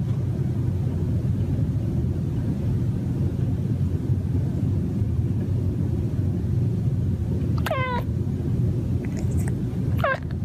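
Domestic cat purring steadily close to the microphone, with a short meow falling in pitch about eight seconds in and another near the end.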